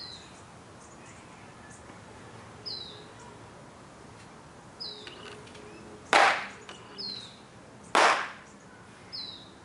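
Two hard hand strikes about two seconds apart against a towel-covered concrete block held in the other hand, a kung fu iron-palm break of the block. A bird gives a short falling chirp about every two seconds.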